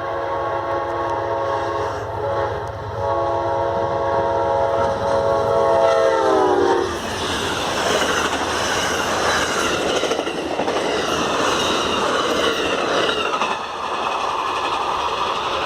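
Amtrak locomotive air horn sounding a chord in two blasts, the second dropping in pitch as the locomotive passes about six seconds in. The passenger train then runs by with a loud rumble and clickety-clack of wheels on the rails.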